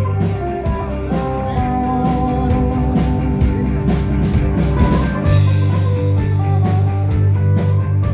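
Rock music: guitar over a bass line and a steady drum beat.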